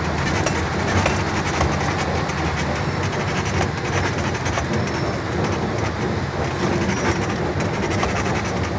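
A heavy truck driving on a gravel road, heard from inside the cab: a steady low engine and road rumble with constant small rattles and clicks from the cab and the gravel.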